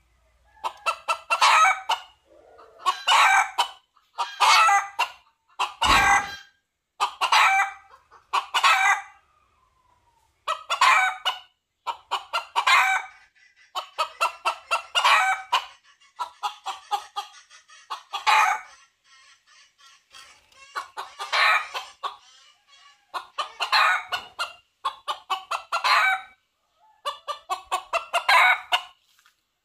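Red junglefowl rooster calling to attract hens: short bursts of rapid clucking calls repeated about every second and a half, with a brief lull a little past the middle.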